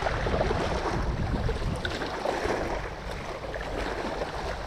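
Wind buffeting the microphone over small waves lapping against shoreline rocks, a steady rushing noise with a low rumble.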